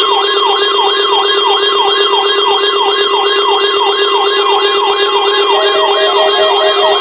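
Electronic sirens sounding together, loud: a falling yelp repeating about three times a second and a faster warble higher up, over a steady low tone. A rapid pulsing beep joins near the end.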